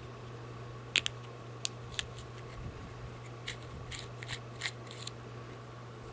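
A series of short, sharp clicks and snips of small handwork on the paper-towel mask: a few about a second in, then a quicker cluster near the end, over a steady low hum.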